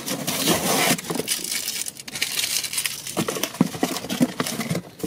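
Packing tape being torn off a cardboard box and the flaps pulled open, the cardboard rustling and crinkling as it is handled. A burst of tearing comes in the first second.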